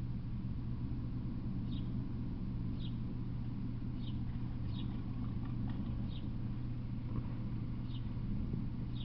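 A bird repeating a short, high, falling chirp every second or so, over a steady low hum.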